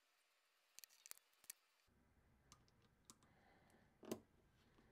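Small metal parts of a vintage Craftsman Flying V ratchet clicking against each other as they are handled and fitted together: a quick cluster of sharp clicks about a second in, a few light ticks, then one louder click near the end.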